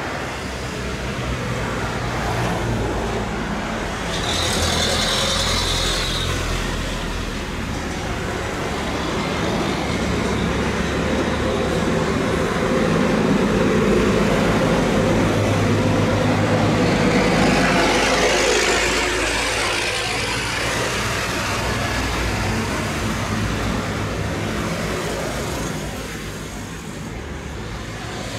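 Boeing 777 freighter's twin jet engines at takeoff power as it rolls down the runway and climbs away. A steady rumble swells to its loudest about halfway through, with a whine that rises in pitch as the jet passes.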